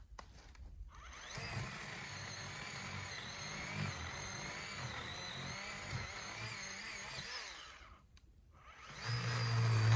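Achiforce 20-volt cordless electric chainsaw running and cutting small limbs, its motor whine wavering in pitch under load. It starts about a second in, stops near eight seconds, and starts again about a second later.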